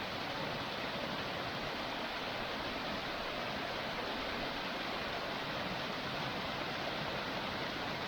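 Waterfall on a small stream pouring in a continuous, even rush of falling water.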